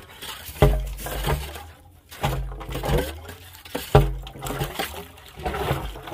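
Steel boring rod knocking and clanking against the steel casing pipe of a hand-bored well, each sharp knock with a low thump and a brief metallic ring, loudest near the start and about four seconds in. Water is poured down the pipe to ease the auger's work.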